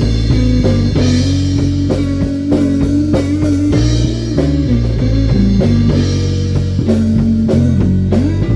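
Rock band jamming: guitar holding long sustained notes over bass and a drum kit, with a note bent upward near the end.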